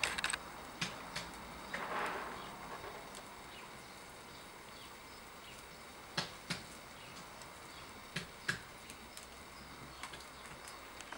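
Wood fire burning under a wide paella pan of boiling broth: a steady hiss with scattered sharp crackles and pops, a pair about a second in and more pairs around six and eight seconds.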